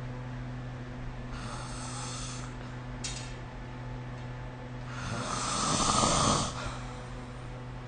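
A sleeping person snoring: a soft breath about a second and a half in, then one loud snore from about five seconds in that ends sharply a little after six seconds. A steady low hum runs underneath.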